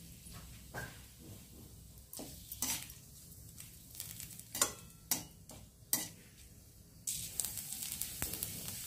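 A metal slotted spoon clinks against an aluminium kadai a few times. About seven seconds in, hot oil starts a steady sizzle as ajwain and nigella seeds fry with bay leaves.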